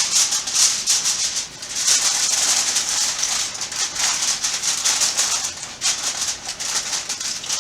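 Aluminum foil crinkling and rustling as it is pressed over a pan to cover it, a dense run of quick crackles.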